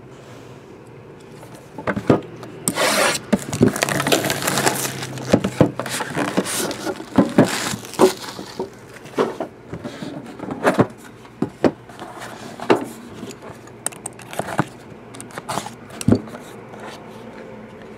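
Shrink-wrap being torn off a trading-card tin: several seconds of crinkling and scraping. This is followed by scattered knocks and taps as the tin is opened and the cardboard box inside is handled.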